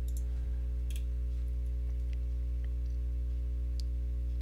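Steady low electrical hum with a few faint clicks of a computer mouse, near the start, about a second in, and near the end, as points are placed in a CAD sketch.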